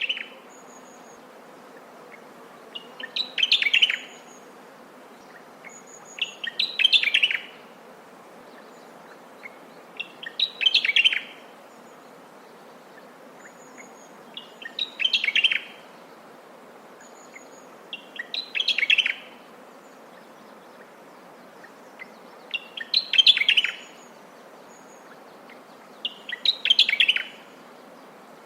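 A Locustella warbler (grasshopper warbler) singing: short phrases of rapid notes, each about a second long, repeated roughly every four seconds, over a steady faint background hiss.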